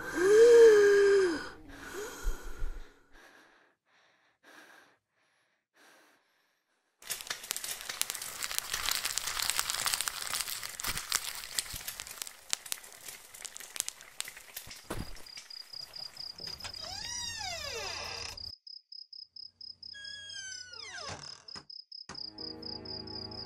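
A brief vocal sound from the boy, then near silence, then a dense crackling noise for several seconds. After that a cricket trills steadily, with two falling whistles over it, and music comes in near the end.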